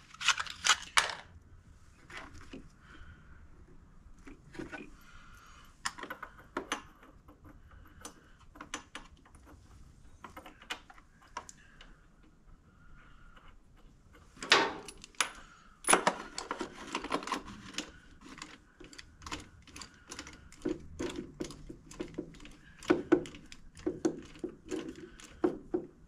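Metal hand tools clinking and clicking in scattered taps and short runs as a new spark plug is fitted and tightened into a generator engine.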